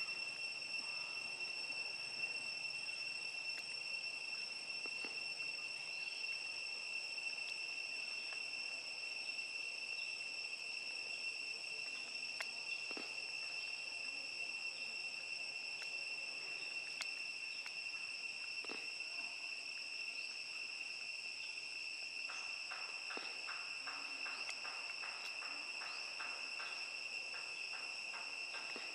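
Insects droning in the trees: a steady, high-pitched whine held at two unchanging pitches. Faint scattered clicks sound through it, with a quick run of soft ticks near the end.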